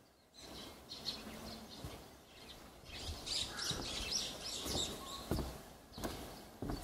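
Small birds chirping, with a busy run of quick high chirps from about three to six seconds in, and a few soft footsteps.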